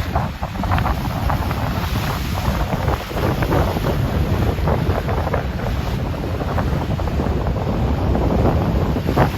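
Rough ocean waves splashing without let-up, with wind on the microphone adding a steady low rumble.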